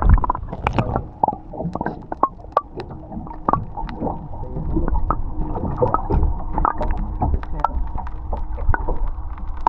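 Water slopping and splashing against a small boat's hull, with many short irregular splashes and drips over a low rumble. A faint steady tone comes in about halfway through.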